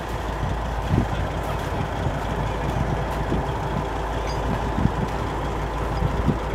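Heavy diesel engines of the tractors and truck idling steadily, with a few dull knocks.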